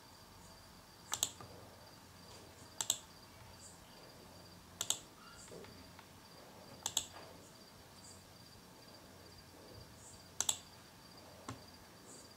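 Computer mouse clicks, each a quick double click like a press and release: five of them a second or two apart, then a single one near the end, over a faint steady high whine.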